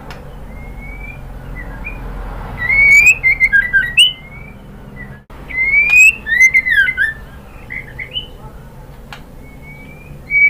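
White-rumped shama (murai batu) song: two loud bursts of whistled phrases, each opening with a rising whistle and running into quick sweeping, chattering notes. Softer single rising whistles come between the bursts.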